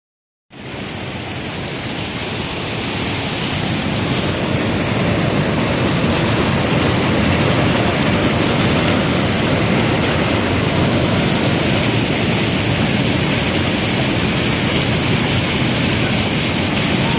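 River rapids: a steady rush of water over rocks, swelling over the first few seconds.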